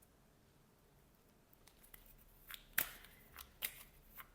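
Tarot cards being handled: quiet at first, then from about a second and a half in, a handful of short, crisp flicks and rustles of card stock.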